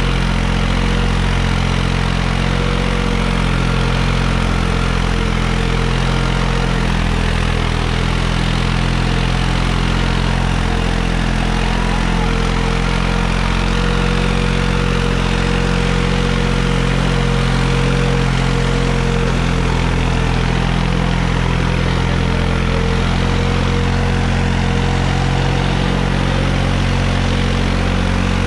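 New Holland 3630 tractor's three-cylinder diesel engine running steadily at low speed as the tractor pulls two harrows over loose soil.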